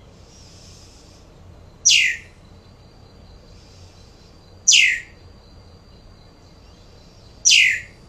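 Recorded red-winged blackbird calls played back: three short calls a few seconds apart, each a sharp note dropping steeply in pitch.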